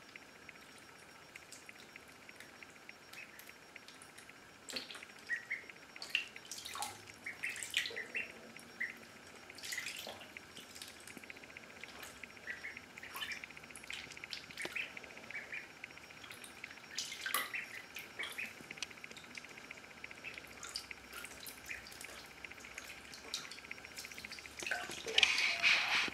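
Indian Runner ducklings paddling and dabbling in shallow bathwater: scattered small splashes and drips, with a few soft peeps. About a second before the end the ducklings break into loud peeping.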